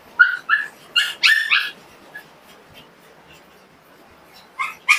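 Pomeranian dogs yapping: a quick run of short, high-pitched barks in the first two seconds, a lull, then more yapping near the end.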